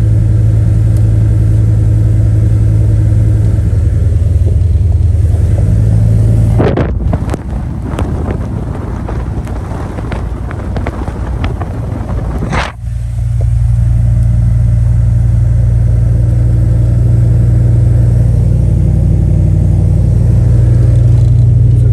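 Cabin drone of a 2000 GMC Sierra 1500 pickup driving, a steady low engine and road hum. About a third of the way in the hum drops away for some six seconds of rough, crackling noise, then comes back steady.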